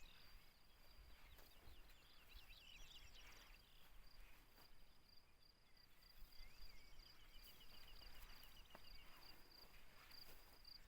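Faint outdoor ambience: a steady, high pulsing trill of insects such as crickets, with small birds twittering in quick series of chirps about one to three seconds in and again near the end. A low rumble lies underneath.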